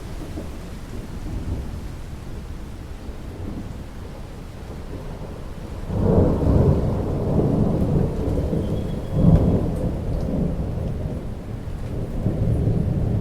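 Thunder rumbling low and rolling over steady rain, swelling suddenly about halfway through, peaking again a few seconds later and building once more near the end.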